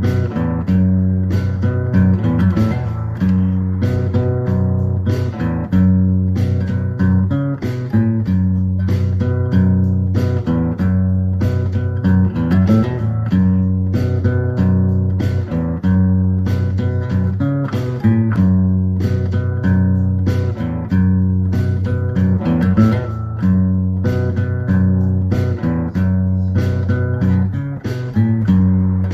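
Background music: plucked guitar over a steady bass line.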